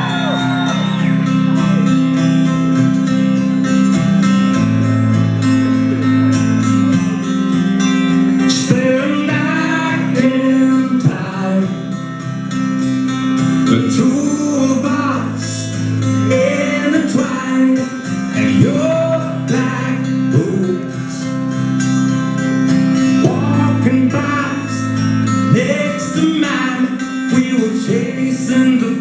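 Live acoustic rock song through a concert PA: acoustic guitars play held chords, and a man starts singing the lead vocal about eight seconds in.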